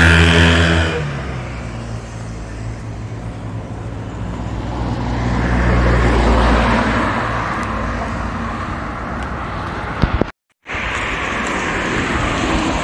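A motorcycle passes close by: its engine note is loud at first and fades over the first second or so. Steady street traffic noise follows, with another vehicle swelling past about six seconds in. The sound drops out completely for a moment about ten seconds in.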